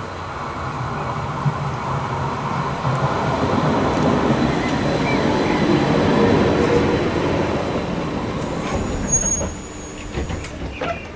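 Articulated low-floor tram running in along the platform, its wheel and motor noise growing louder as it comes close and passes, then dying away. A brief high squeal is heard about nine seconds in.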